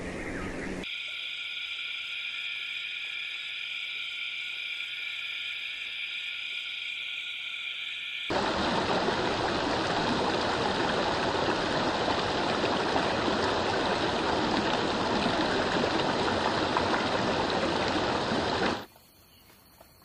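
A steady high droning hum held on several pitches, then a louder, even rush of running water for about ten seconds that cuts off abruptly near the end.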